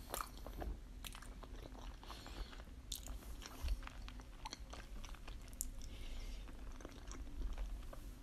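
Close-miked chewing of a mouthful of sushi: soft, wet, irregular mouth clicks and smacks.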